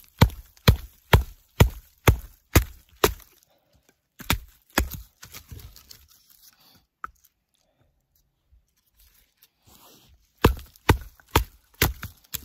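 Batoning wood with the Worktuff / Aurora Borealis Wolverine fixed-blade knife: a wooden baton knocks the blade's spine down through a stick to split it. The knocks come steadily, about two a second, for roughly the first three seconds. A few lighter knocks and clatters of split wood follow, then a quiet pause, and a second quick run of baton strikes starts near the end.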